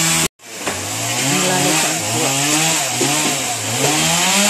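Small petrol engine revving up and down over and over, its pitch rising and falling every half second or so, broken by a brief cut near the start.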